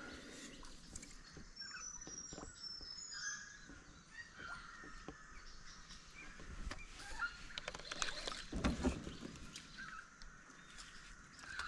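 Small birds chirping in the background, with small knocks and water sounds from a kayak. A louder dull thump comes about eight and a half seconds in.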